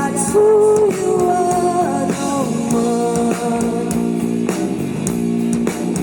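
A live psychedelic rock band playing an instrumental passage, with a gliding melodic line over a steady band backing.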